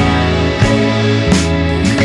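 Background music led by guitar, with sustained chords changing every half second or so.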